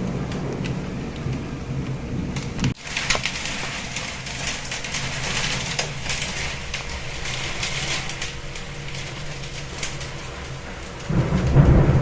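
Steady rain hissing down, with thunder rumbling at the start, breaking off abruptly a little under three seconds in, and a new roll of thunder building near the end.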